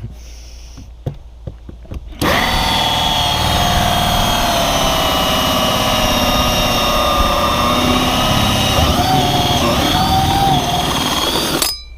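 Power drill spinning a hole saw through a fibreglass boat deck, down to the core. It starts about two seconds in and runs steadily for about nine seconds, its pitch sagging briefly under load near the end before it stops.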